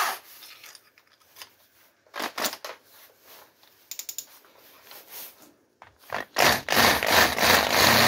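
Short scratchy rubbing and scraping sounds, then about six seconds in an electric hand drill starts and bores into a metal plate held in a vise, opening its pilot holes out to 8 and 10 mm.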